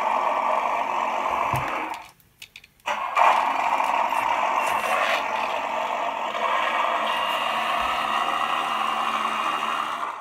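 Simulated V8 engine sound from the RC truck's 'DasMikro' sound module, played through its small speaker and running steadily. About two seconds in it cuts out for about a second, then comes back in with a loud burst like an engine starting.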